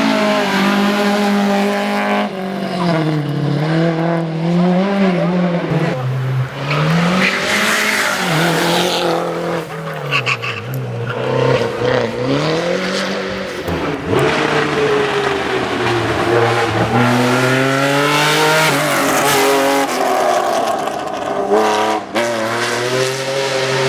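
Hill-climb race car engines revving hard, the pitch climbing and dropping again and again as the cars accelerate, brake and shift through the gears.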